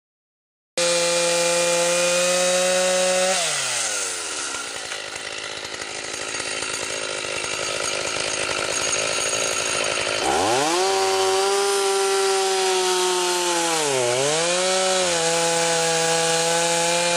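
Chainsaw running at high revs, its pitch dropping sharply as it bogs down in a cut into wood, then climbing back to a high steady whine with a brief dip near the end.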